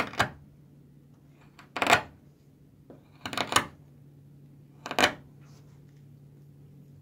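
Flat carving knife pushed by hand into a wooden block, paring off shavings in several short cuts, each under half a second and a second or two apart, as the base is cut down to level it.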